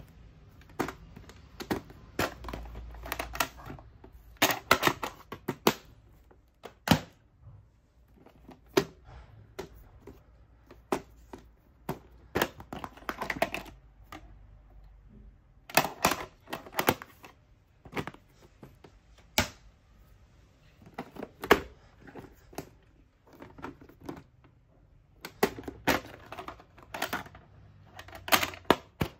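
Plastic VHS cases and videocassettes being handled: cases snapping open and shut and cassettes clacking against plastic, in an irregular run of sharp clicks and knocks with short clusters of rattling.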